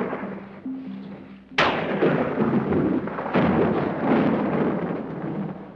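Thunder sound effect from a 1959 horror film's soundtrack, with a textured, somewhat unreal quality. The tail of one clap is fading away, then two sudden cracks come about a second and a half and about three and a half seconds in, each rolling off slowly.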